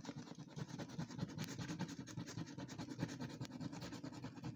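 Coin scraping quickly back and forth across the scratch-off panel of a paper lottery scratchcard, a fast, even run of short rasping strokes.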